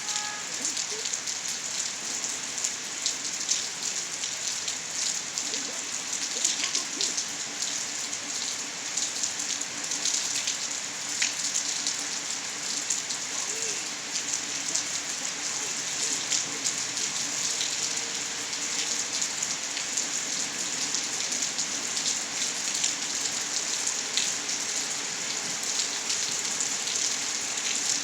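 Steady rainfall, with many individual drops striking close by as sharp ticks over an even hiss.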